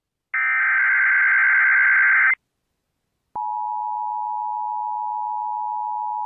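Emergency Alert System SAME header: a two-second burst of rapid data tones. After a second of silence, the steady two-tone EAS attention signal begins about three seconds in and holds on.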